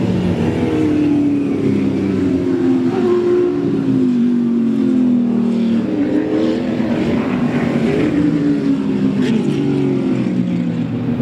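Several muscle race cars passing one after another at racing speed, their engine notes overlapping and sliding down and up in pitch as each car goes by.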